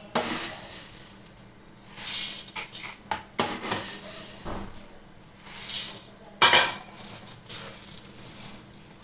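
Dry puffed rice poured in several rustling scoopfuls into a steel bowl, with a few sharp clinks of the scoop against the steel tin, the loudest about two-thirds of the way through. Near the end, hands toss the grains with a soft rustle.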